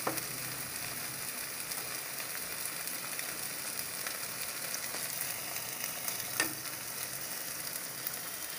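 Creamy butter chicken gravy, thinned with a little water, sizzling steadily in a non-stick kadai, with one light knock a little past six seconds in.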